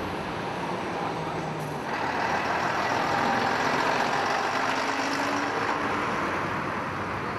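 Low in-car hum for about the first two seconds, then the steady noise of street traffic, with a large vehicle passing close by: the noise swells in the middle and eases off again.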